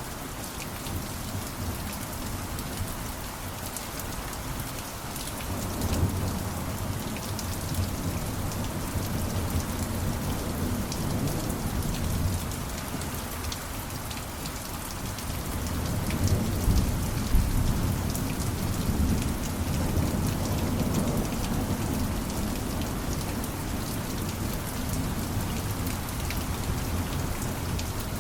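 Steady rain falling, with two long low rumbles of thunder: one building about five seconds in, and a louder one about sixteen seconds in.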